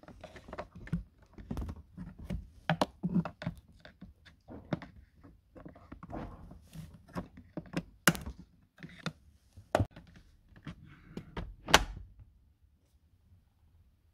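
Plastic knocks and clicks of a car glovebox being hooked into the dashboard and its clips snapped into place, a quick run of small knocks with sharper snaps about eight, ten and twelve seconds in.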